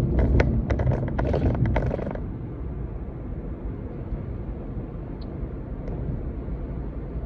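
Steady low road rumble inside a moving car's cabin. For about the first two seconds it is overlaid by a loud run of irregular sharp clicks and knocks, which then stop.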